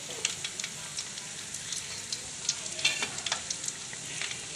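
Bread pakoras deep-frying in a kadhai of hot oil on low heat: a steady sizzle with many small crackling pops as they slowly crisp.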